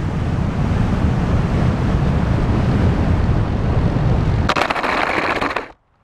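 Wind rushing over the onboard camera of an FPV RC plane flying low over the runway. About four and a half seconds in, a harsher scraping rush as the plane touches down and skids on the asphalt, which stops suddenly about a second later.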